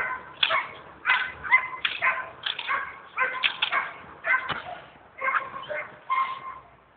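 Belgian Malinois barking repeatedly in short, high-pitched barks, about two a second, while held back by the collar. The barking stops shortly before the end.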